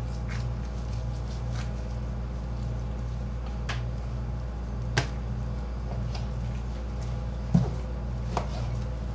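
A knife trimming beef on a plastic cutting board: faint scraping and cutting sounds, with sharp clicks of the blade on the board, one about five seconds in and a heavier knock about two and a half seconds later, over a steady low hum.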